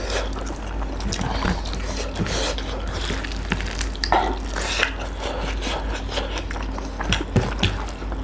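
Wet eating sounds from curry and rice: squelching and chewing, with many small clicks.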